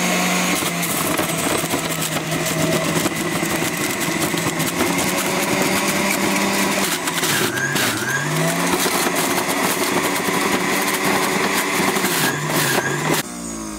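Electric juicer running as carrots are pushed down its feed chute and shredded. The motor's hum sags in pitch under load about seven seconds in and again near the end, then the motor stops just before the end.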